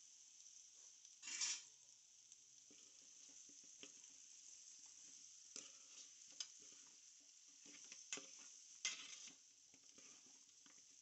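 Metal spoon stirring fried chicken pieces into a spiced onion-tomato masala in a metal pan, faint, with a few louder scrapes against the pan over a low, steady sizzle.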